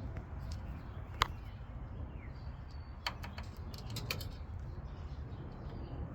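Steady low hum with a handful of sharp clicks, one about a second in and a quick cluster around three to four seconds in, and faint bird chirps in the background.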